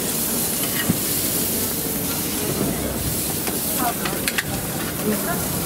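Tartiflette of potatoes, onions and lardons sizzling in a large hot pan while it is stirred, with a few sharp utensil clicks.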